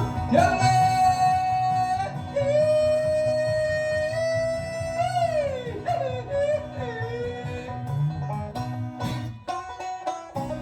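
Live acoustic country string band playing an instrumental passage: strummed guitar under long held lead notes that bend and slide in pitch. The playing thins out about nine to ten seconds in.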